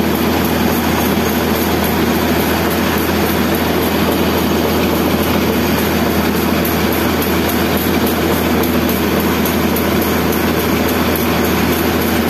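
Steady loud rushing noise of a hose blasting into a concrete girder's prestressing tendon duct to clean it out before grouting, over a steady low machine hum.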